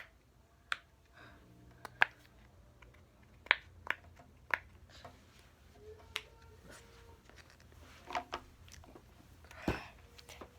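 Irregular sharp clicks and taps from small toys being handled, about a dozen spread unevenly, with a short rustle near the end that is the loudest sound.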